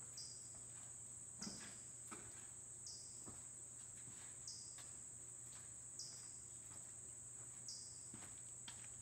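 Faint, steady, high-pitched drone of insects, with a short high call repeating about every second and a half. Faint footsteps scuff on gritty rock.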